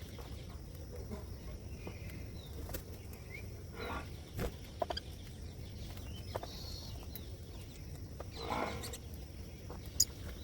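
Lovebirds giving a few short, faint chirps, with scattered sharp clicks and a couple of brief rustles, over a low steady rumble.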